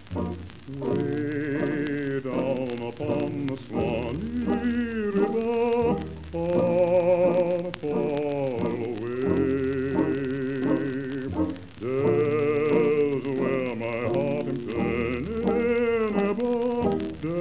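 Music with a solo voice singing long, slow notes with wide vibrato over a low, sustained accompaniment.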